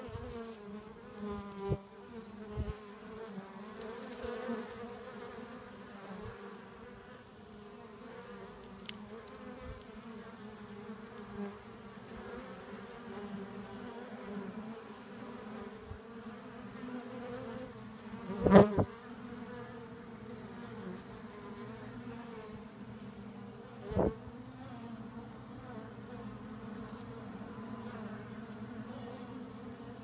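Honeybee swarm clustered in a hollow log, buzzing with a steady low hum. A few sharp knocks break in, the loudest about two-thirds of the way through and another shortly after.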